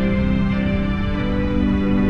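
Background film score: sustained held chords over a steady low note.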